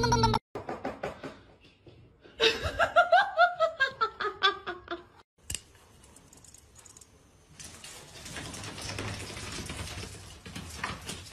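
A person laughing in a run of short, rhythmic bursts that fall in pitch, loudest a few seconds in, after some softer giggling; a faint noisy background follows.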